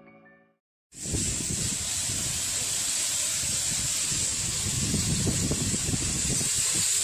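A steady rushing hiss with an uneven low rumble starts abruptly about a second in, just after music fades out.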